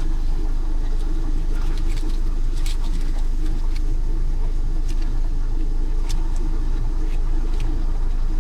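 Steady low engine drone, with scattered light clicks of small parts being handled.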